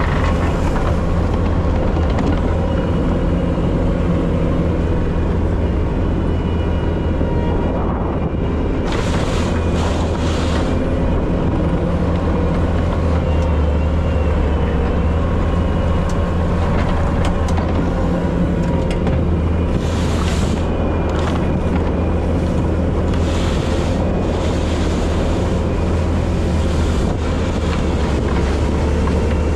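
Bobcat T770 tracked skid steer's diesel engine running steadily under work, with short bursts of hiss now and then.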